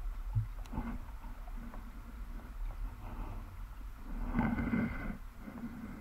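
Muffled underwater noise heard through a submerged camera's housing: a steady low rumble of water, with a louder stir about four and a half seconds in.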